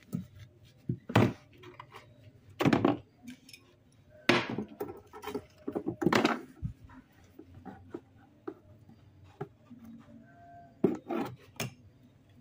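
Small plastic items (a bottle cap, a lid, a spoon, a tube) knocking and rattling against each other and the cardboard of a box as a baby monkey handles them: irregular sharp knocks, a few of them loud.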